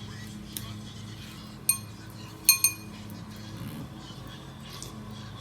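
Three sharp, ringing clinks of a utensil or tool striking a dish, the first about two seconds in and the last two close together, with a few fainter clicks around them, as snow crab legs are being cracked open.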